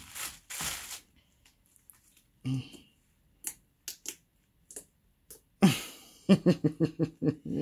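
Homemade slime squished and stretched by hand, with a brief rustle at the start and a few faint sticky clicks. Near the end a person's voice in a quick run of short pulses is the loudest sound.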